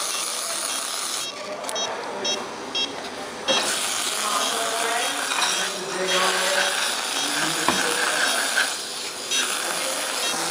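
Hiss of a dental air-water syringe spraying water to rinse a dog's mouth during a cleaning, stopping twice for a moment.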